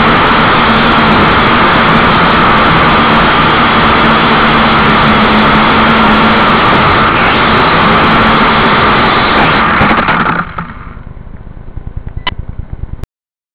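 JJRC 8HC toy quadcopter's motors and propellers whining steadily, heard through its own onboard camera. About ten seconds in the motors cut out and wind down, followed by a single click, then the recording stops.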